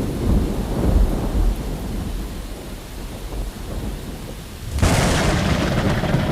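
Thunder rumbling and fading, then a sharp crack of thunder about five seconds in that rolls off into a deep rumble.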